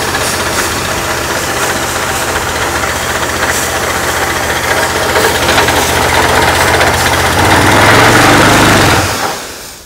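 Honda GX390 single-cylinder engine on a gas pressure washer, running steadily just after a pull start. It grows a little louder about seven and a half seconds in, then is switched off and runs down to a stop near the end.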